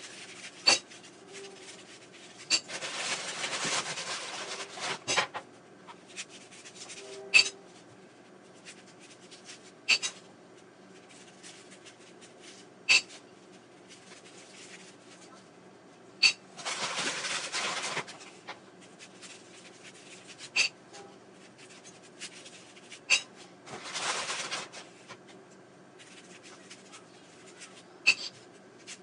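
Foil wrappers being peeled off Hershey's Kisses, crinkling in three longer bouts of a couple of seconds each, with sharp clicks scattered between.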